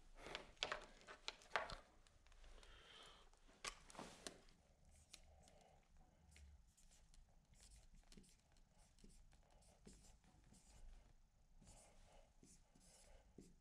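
Near silence: quiet room tone, with a few faint knocks and clicks in the first four seconds.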